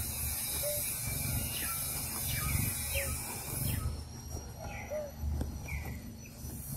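Forest ambience: a steady high hiss and a low rumble, with scattered short high chirps. The hiss drops out for a couple of seconds in the middle.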